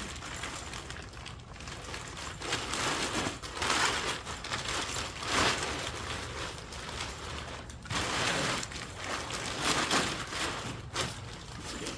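Rustling and handling noise of nylon tent fabric and gear, a hiss that swells and fades several times over a low steady rumble.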